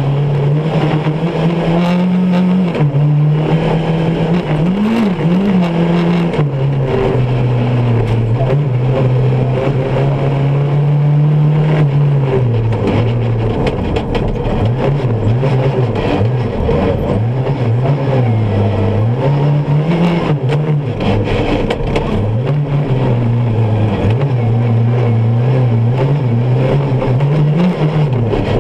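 Off-road rally buggy's engine heard from inside the cockpit under hard driving, its revs rising and dropping again and again through gear changes and lifts. Frequent sharp knocks and rattles come from the rough dirt track.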